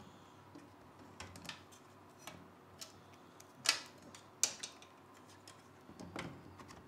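Scattered light clicks and knocks of hard plastic and metal parts as the mini PC's compute module is seated and pressed down into its chassis by hand. Two sharper clicks come a little past the middle.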